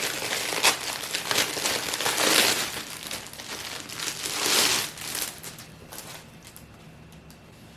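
Packaging being handled, crinkling and rustling in uneven bursts that grow loudest twice and then die away about two-thirds of the way through.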